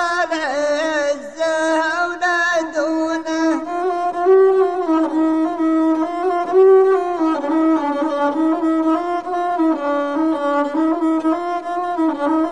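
A Bedouin rababa, a single-string bowed spike fiddle, playing a wavering melody. A man's sung line ends in the first few seconds and leaves the rababa playing alone.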